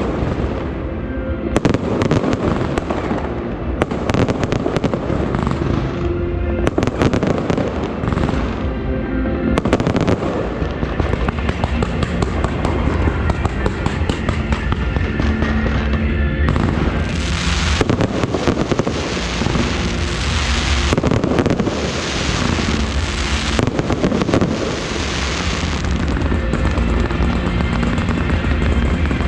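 Fireworks going off in rapid bangs and sharp crackles, with music playing underneath. About halfway through, the bangs give way to several long waves of dense crackling hiss.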